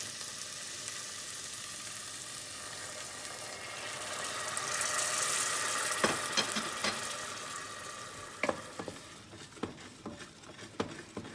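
Onions and frozen peas sizzling in a hot stainless steel saucepan; the sizzle swells into a burst of hissing steam about halfway through as a ladle of vegetable stock goes in, then dies down. A wooden spoon knocks against the pan as the peas are stirred toward the end.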